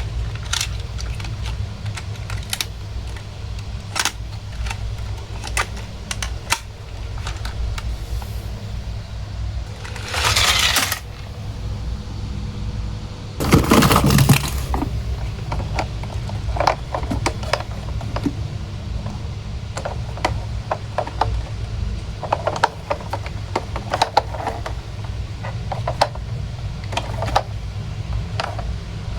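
Small toy vehicles being handled: scattered light clicks and clinks against each other and a hard surface, over a steady low hum. A short rustle comes about ten seconds in, and a louder one about fourteen seconds in.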